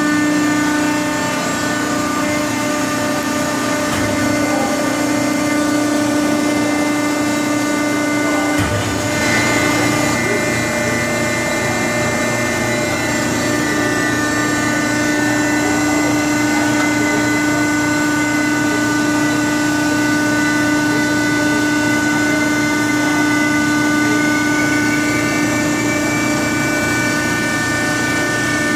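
Hydraulic pump and 40 HP main motor of a Cincinnati 300H 300-ton CNC press brake running with a steady machine hum. About nine seconds in the sound changes abruptly and a lower rumble joins, and near the end a high whine rises slightly in pitch.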